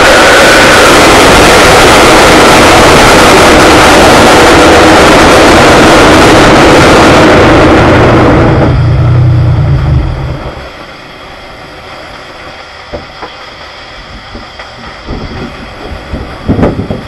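Drag race car heard from inside its cabin: engine and rushing noise very loud and overloading the microphone. About nine seconds in the hiss drops away, a deep engine rumble holds for about a second and then stops, leaving quieter rattles and knocks, with a louder knock near the end.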